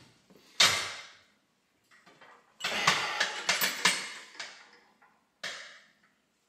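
Cable lat pulldown machine clinking and clanking as the metal handle is gripped and the weight stack is lifted: a quick run of metal knocks and rattles from about two and a half to four and a half seconds in. A loud short rush of noise comes about half a second in and another near the end.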